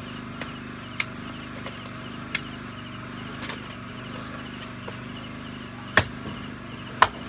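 A few sharp, irregular chopping strikes of a blade on wood, the loudest about a second in and twice near the end. Underneath, night insects chirp steadily in an even repeating pattern.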